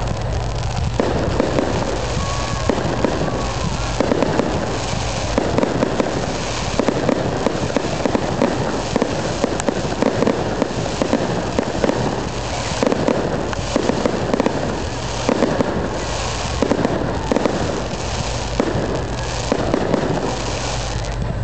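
Fireworks display going off continuously: dense, rapid crackling and popping with frequent louder bangs, over a steady low rumble.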